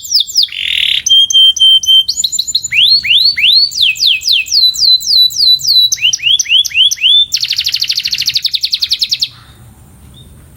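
Canary singing a run of repeated phrases: quick falling notes, a brief held tone, rising sweeps, then a fast, even trill that stops about nine seconds in.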